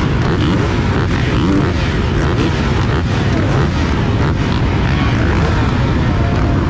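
Several motocross bike engines revving together, their pitches overlapping and rising and falling continuously.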